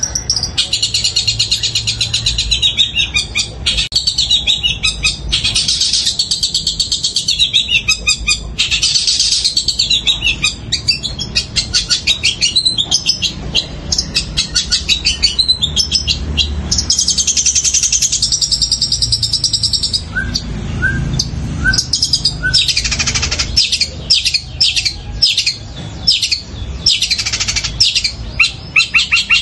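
Caged long-tailed shrike (cendet) singing a long, loud, unbroken song of rapid chattering trills, with chirps in the style of the Eurasian tree sparrow. In the last third the song breaks into a run of sharp, separate chirps.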